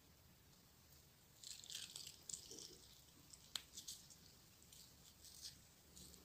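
Faint wet squishing and dripping of a lime slice squeezed by hand over fish curry and rice, with a single sharp click about halfway through.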